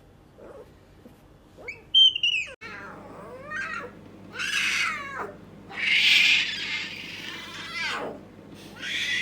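Leopard cub crying out in a string of high-pitched calls that slide downward, the loudest about two seconds in. The owner takes the cries for hunger.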